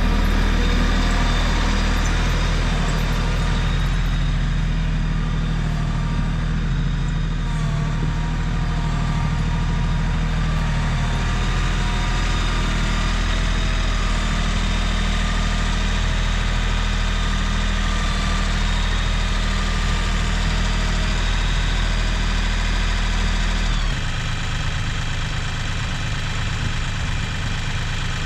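Compact tractor's diesel engine running steadily; about three-quarters of the way through, its note drops to a lower, slightly quieter idle.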